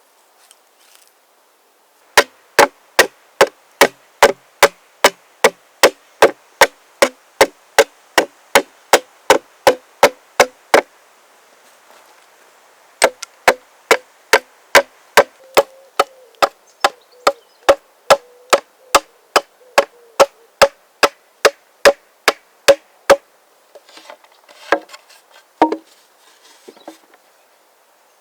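Axe blows into wood in a steady run, about three sharp chops a second, with a pause of a couple of seconds in the middle. A few lighter, irregular knocks and rustles come near the end.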